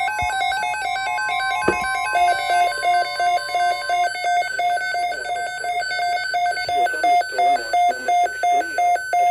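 Weather radio alert tones: the steady NOAA warning alarm tone, near 1,050 Hz, stops about four seconds in, under a run of electronic alarm beeps that settles into a fast pulsing beep, about five every two seconds, in the second half.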